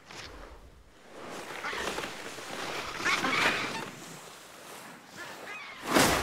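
Rushing, hissing swish of an animal sliding on its belly down packed snow, swelling and fading, with a louder whoosh near the end.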